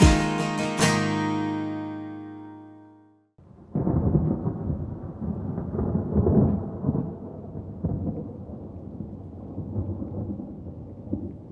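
A strummed acoustic guitar chord rings out and fades to silence over about three seconds. About four seconds in, a low rolling rumble of thunder starts and runs on, swelling and easing.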